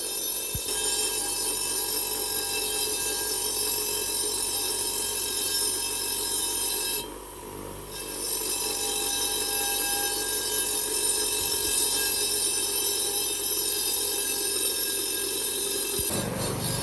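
Power tool running with a steady high-pitched whine of many tones, which drops away briefly about seven seconds in.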